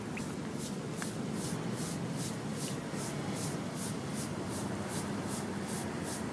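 Bristle brush scrubbing back and forth over painted brick, working graffiti remover into the paint: a regular train of short scratchy swishes, about two and a half strokes a second, over a steady low hum.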